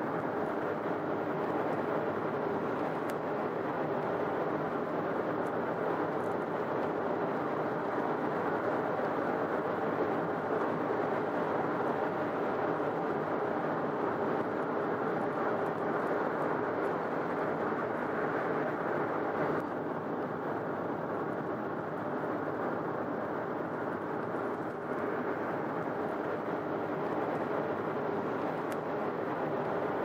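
Steady road and engine noise heard inside a moving car's cabin, an even rumbling hiss.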